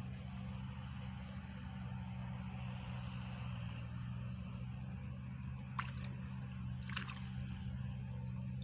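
A steady low mechanical hum under an even hiss, with two short sharp clicks near the end.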